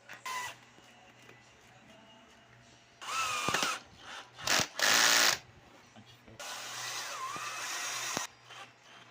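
Electric drill run in several short bursts: a brief one at the start, a cluster of loud runs with the motor pitch rising and falling from about three seconds in, then a steadier run of about two seconds near the end.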